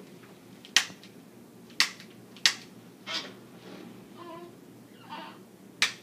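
Sharp, loud clicks: three in the first two and a half seconds, then a fourth near the end, with soft rustling between them.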